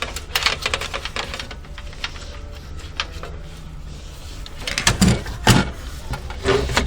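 Irregular clicks and knocks of hard objects being handled, in scattered clusters, the loudest group about five seconds in, over a steady low hum.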